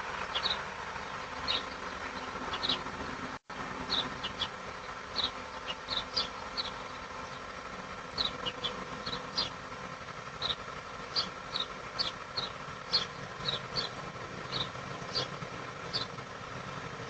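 Short, high animal chirps, each falling slightly in pitch, repeating irregularly about one or two a second over a steady hum. The sound drops out briefly about three and a half seconds in.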